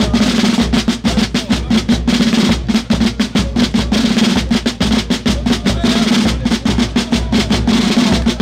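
Binche carnival drum corps (batterie) of tambours with a bass drum, playing a loud, fast rolling beat of dense, even strokes.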